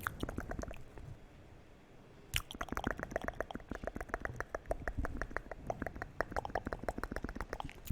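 Close-miked wet mouth sounds: quick tongue and lip clicks. A short run of clicks comes first, then a brief lull, then one sharp smack and a fast run of about eight clicks a second.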